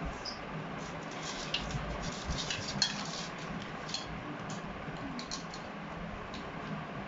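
Light clinks and scrapes of tableware against a plate as the pan-fried fish is tasted: a scatter of small clicks with the sharpest about three seconds in, over a low steady hum.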